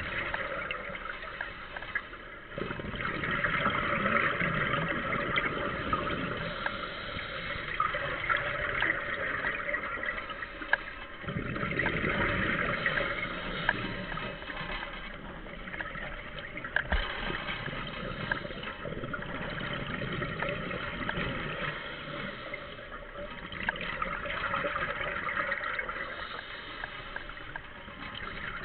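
Underwater scuba breathing: a diver's regulator, with exhaled bubbles rushing and gurgling in waves every few seconds and a few light clicks between them.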